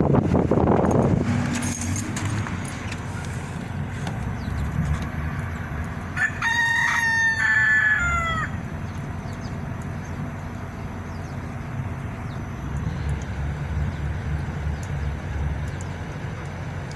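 A rooster crows once, about six seconds in: one pitched call of about two seconds that drops in pitch at the end. Under it runs a low rumble of wind on the microphone, strongest at the start.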